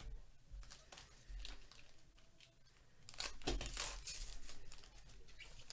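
A trading card pack's plastic-foil wrapper being torn open and crinkled. The tearing comes in short rasps, loudest about three seconds in.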